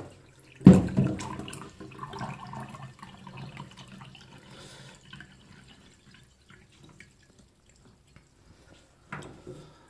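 Thin stream from a water filter's drinking-water faucet running into a glass, with a sharp knock about a second in. The trickle fades away over the next few seconds.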